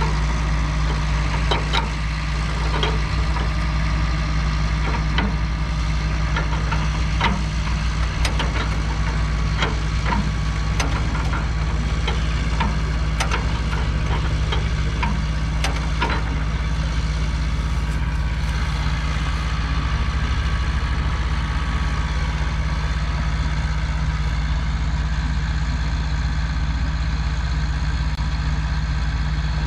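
An engine idling steadily, with irregular metallic clicks and clanks over the first half as a starting handle is worked at the front of a 1937 Allis-Chalmers M crawler.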